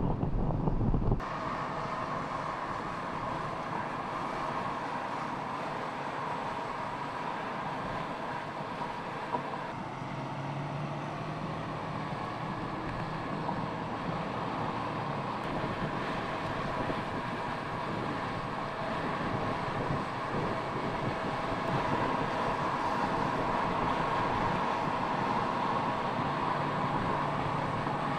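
MINI Cooper Convertible driving at a steady speed: engine and tyre drone with wind noise. A heavy low wind rumble cuts off about a second in, leaving a steadier drone.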